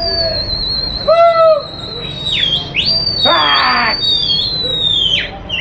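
People whistling to a flying pigeon flock: long, wavering high whistles that slide down and up, one after another. A short loud hooting call comes about a second in, and a rougher call around three seconds in.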